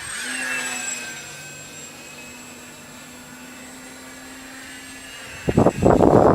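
Multiplex Blizzard electric RC plane's Turnigy brushless motor spinning a 9x9 prop. Its high whine falls slightly in pitch and fades over the first couple of seconds, then holds as a faint steady drone. Wind buffets the microphone near the end.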